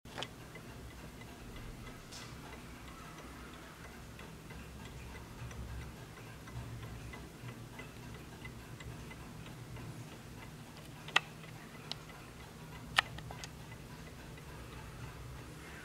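1920 B W L 'Napoleon hat' mantel clock ticking steadily. A few sharp, louder clicks stand out about two thirds of the way through.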